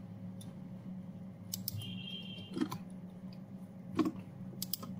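A handful of computer keyboard and mouse clicks, some in quick pairs, as a command is copied, pasted into a terminal and run, over a steady low electrical hum.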